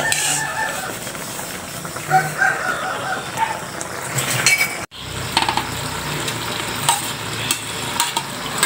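Metal spoon stirring a simmering coconut-milk sauce with scallops in an aluminium wok. Short chicken calls are heard in the background, once near the start and again a couple of seconds later.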